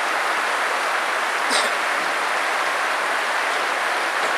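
Steady rushing of a mountain stream flowing past, with one brief click about a second and a half in.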